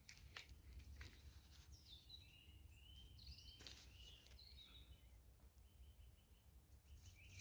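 Quiet forest ambience: a bird gives faint short calls repeatedly from about two seconds in, with a couple of faint clicks and a low background rumble.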